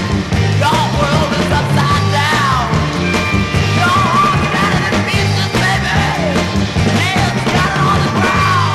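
1960s psychedelic rock song: a full band with drums, a stepping bass line and a lead melody that slides in pitch.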